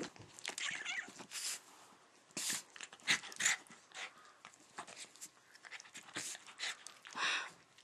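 A dog play-fighting with a cat, giving quiet, irregular snuffles and pants in short bursts, with a slightly longer one near the end.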